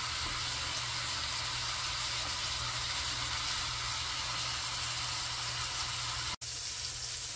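Beef chuck roast searing in hot butter and oil in a cast-iron skillet: a steady sizzle. It breaks off for an instant about six seconds in.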